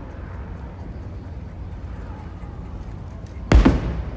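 An aerial firework shell bursts once with a loud boom about three and a half seconds in, then dies away within about half a second.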